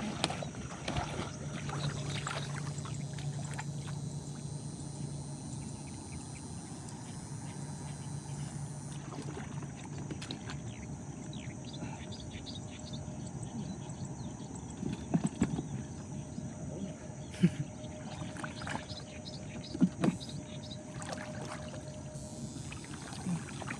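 Water sloshing and splashing as someone wades, with a low steady hum through the first half and a few sharp knocks in the second half.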